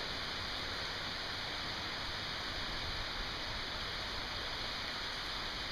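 Heavy tropical downpour: rain falling in a steady, even hiss.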